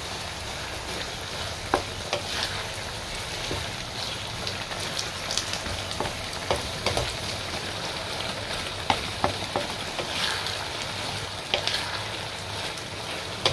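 Sauce bubbling and sizzling in a wok around pieces of chicken and vegetables as it cooks down to thicken, with a wooden spatula stirring through it. Short clicks and taps come at irregular moments over a steady hiss.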